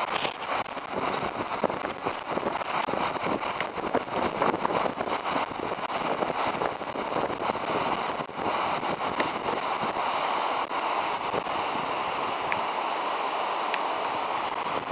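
Debris flow from a wildfire burn scar, thick muddy water and sediment running down a creek channel: a steady rushing with many small crackles and knocks in it.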